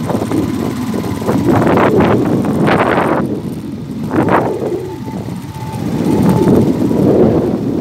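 Quad bike (ATV) engine running as it drives along a sandy dirt track, with a few short sharp bursts of noise between about one and a half and four and a half seconds in.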